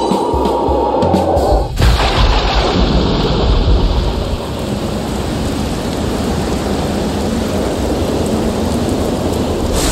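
Thunderstorm sound effect: music with a steady beat cuts off about two seconds in, replaced by a crash of rumbling thunder that settles into steady heavy rain.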